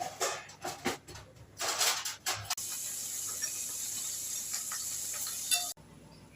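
Hot oil sizzling in a pan, likely with cumin seeds tempering. It starts after several short clattering, rustling noises, turns into a steady high hiss about two and a half seconds in, and cuts off suddenly near the end.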